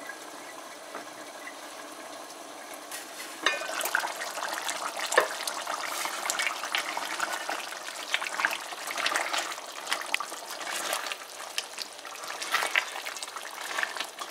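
Goat curry boiling in a covered metal pot, a steady low bubbling. A few seconds in the lid comes off with a clink, and the bubbling grows louder and crackly as a silicone spatula stirs through the thick, simmering curry.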